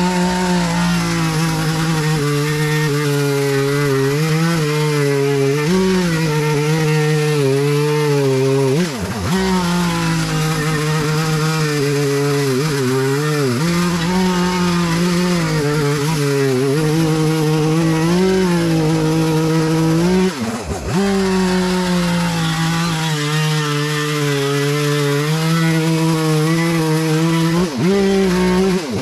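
Two-stroke chainsaw running at high revs as it cuts into wood, its pitch wavering under load. The revs drop sharply and pick up again four times, about a third of the way in, near the middle, about two-thirds in, and near the end.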